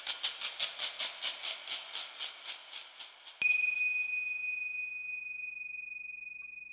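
Logo-intro sound effect: a fast run of ticks that slows and fades, then about three and a half seconds in a single bright bell-like ding that rings on and slowly dies away.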